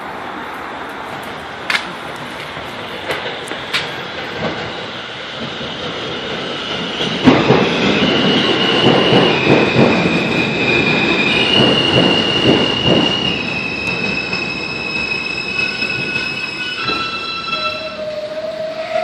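R160A subway train running into a station and slowing: wheels clacking over the rail joints, getting louder from about a third of the way in, with high squealing tones that step from pitch to pitch as it brakes. A lower rising tone comes in near the end as it comes to a stop.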